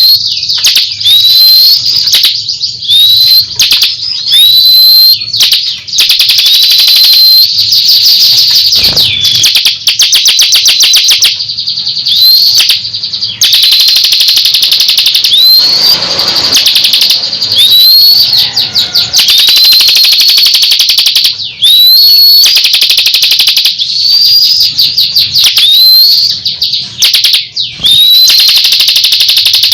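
Ciblek kristal (bar-winged prinia) singing loudly. Fast, dense chattering trills are punctuated every second or two by short, high, upward-hooking whistles.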